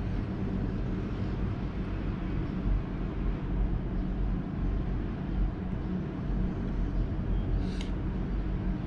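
Steady low hum and rumble of background noise, with one short sharp sound about eight seconds in.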